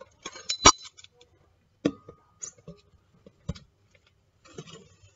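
Metal measuring spoons on a ring clinking against each other as they are handled: a few sharp clinks, the loudest under a second in.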